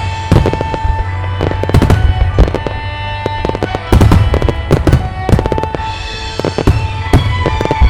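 Aerial fireworks shells bursting in quick succession, many sharp booms and crackles several a second, with music playing alongside the display.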